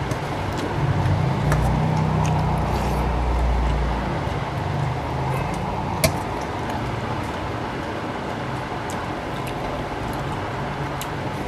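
A steady low rumble, like a vehicle running or passing outside, heaviest in the first four seconds, with scattered small clicks and one sharp click about six seconds in.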